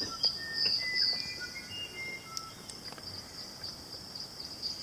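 Crickets chirring steadily at a high pitch, with a few short, thin bird chirps in the first couple of seconds.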